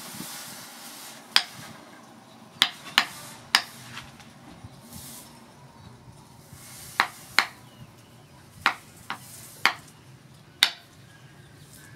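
Hot steel knife blade being quenched edge-down in water: a brief sizzle of steam that fades in the first second, then about ten sharp clicks scattered irregularly as the blade sits in the quench pipe.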